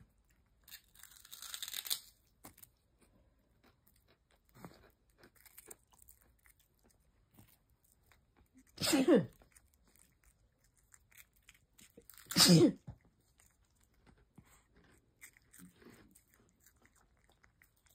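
A cat crunching and chewing pork rinds, with small crunches throughout and a busier burst of crunching near the start. A person sneezes loudly twice, about nine and twelve seconds in; these are the loudest sounds.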